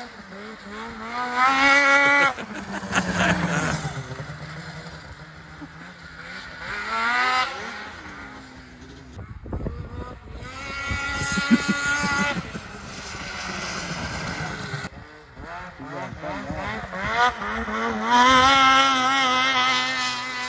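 Snowmobile engine revving hard through repeated high-speed runs, its pitch rising and falling as the sled comes near and pulls away. It is loudest as it passes close about two seconds in and again near the end.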